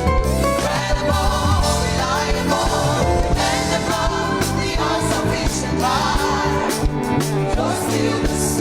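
Gospel praise music: singing with instrumental accompaniment, continuing without a break.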